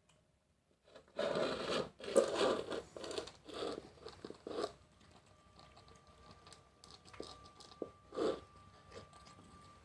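Cats eating, a run of loud crunching and tearing bursts over a few seconds, then quieter chewing and scraping with one more sharp crunch near the end.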